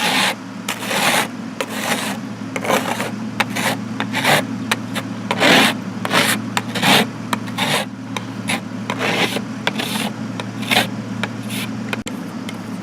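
Repeated rasping scrapes, about one or two strokes a second, of ice that has frozen solid being scraped, over a steady low hum.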